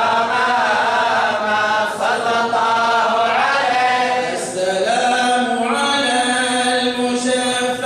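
Men's voices chanting a devotional mawlid praise song together, unaccompanied. It is a slow melody of long held notes that bend up and down in pitch.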